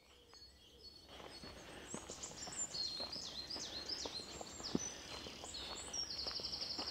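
Several woodland songbirds singing, fading in about a second in: short falling and curved chirps, with a fast, even trill near the end. A few light clicks sound underneath.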